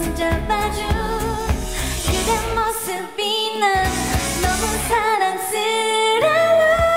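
K-pop song: a singer's melody over a steady drum beat and bass. The beat and bass drop out briefly twice in the middle, and a long held note begins near the end.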